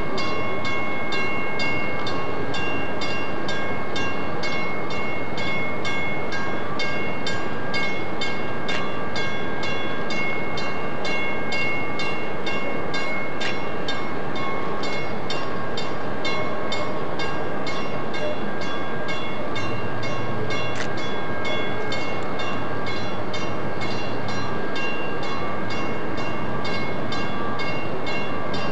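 Steady engine drone with a regular beat of about three pulses a second and several steady high tones over it.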